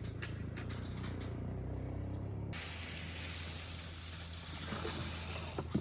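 Water turned on and gushing from a hose to fill a livestock trough, starting suddenly about two and a half seconds in as a loud, even hiss. A low steady hum runs underneath.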